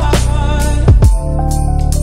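A Christmas pop song playing, with a deep bass beat and sustained notes.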